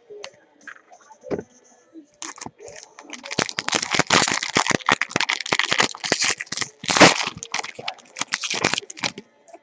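Foil trading-card pack wrapper crinkling as it is torn open and handled: a dense run of rapid crackling that starts about two seconds in and stops near the end.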